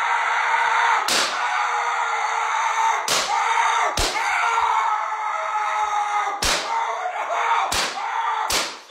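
Cartoon-style beating: six sharp slap or smack hits at uneven intervals over a loud, continuous noisy din.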